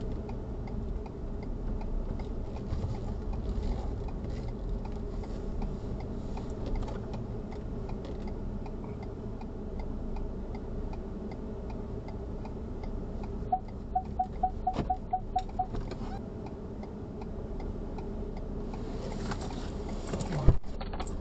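Car cabin noise of low road and engine rumble, with the turn-signal indicator ticking steadily. Past the middle comes a run of about eight quick beeps, and near the end a rush of noise and a sharp knock.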